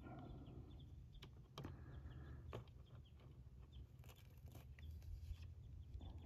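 Near silence with a few faint, sharp clicks from a hex key and gloved fingers working a small set screw in a metal wire retainer collar on a flush cable. The clicks come in a short cluster around the middle.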